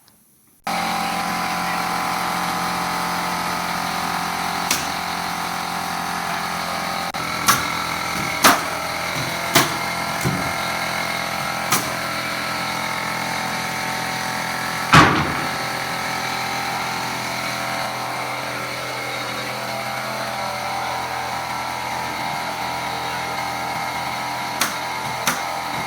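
A steady machine motor running loud and even, starting abruptly, with sharp single knocks or shots scattered over it, the loudest about halfway through.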